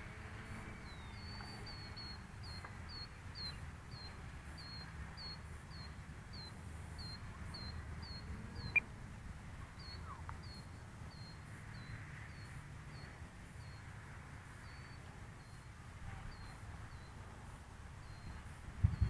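Repeated short high chirps from a small animal, one or two a second, over low outdoor rumble, with a single sharp click about nine seconds in.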